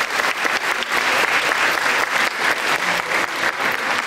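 Audience applauding: many hands clapping steadily at once.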